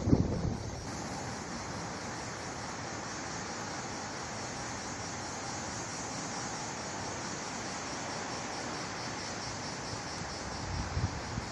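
Steady outdoor hiss of wind, with gusts buffeting the microphone in the first second and again near the end.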